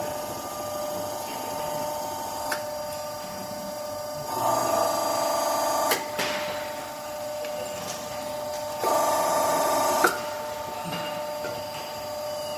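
Hydraulic hose crimping machine running through a crimp cycle on a hose fitting: a steady motor-and-pump hum that twice rises into a louder, rougher run of a second or two, each time ending in a sharp click.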